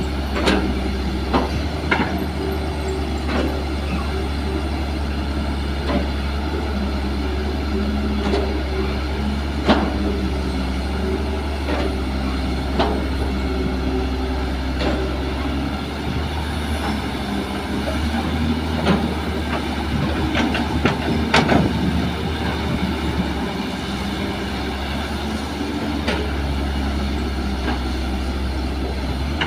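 Kobelco SK200 hydraulic excavator's diesel engine running steadily under load while it digs soil, with occasional sharp knocks from the digging.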